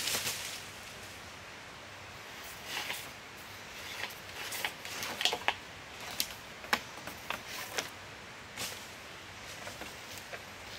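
Irregular light clicks, snaps and rustles over a steady hiss, with one loud click at the very start.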